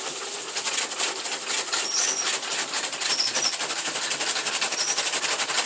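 Electric chaff cutter running on solar power, its blades chopping with a rapid, even clatter.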